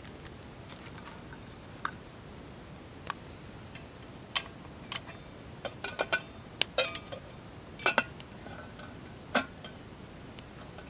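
Twig fire crackling in a small metal twig stove under a pot of water: irregular sharp pops and clicks, a few with a brief ring.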